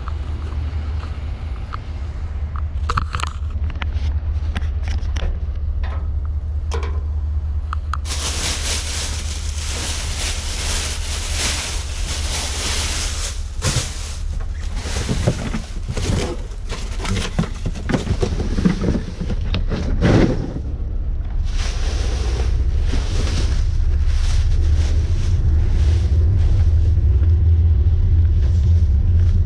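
Clear plastic trash bags rustling and crinkling as they are pulled about, with scattered knocks and crackles, over a steady low rumble that grows louder near the end.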